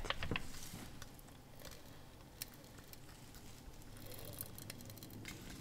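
Faint, scattered clicks and scratchy rustles from the focus mechanism of an Amscope SM-4TZ-144A stereo microscope as it is adjusted. The grease and gears inside make the noise, which the owner judges harmless.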